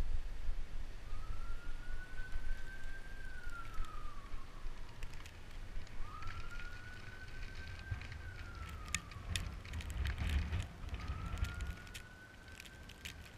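Faint emergency-vehicle siren wailing in slow cycles, three rise-and-fall sweeps about five seconds apart, over a louder low rumble and scattered light clicks.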